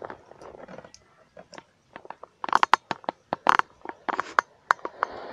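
Footsteps crunching through dry grass stalks and straw on a muddy bank: irregular sharp crackles, sparse at first and louder and denser from about halfway.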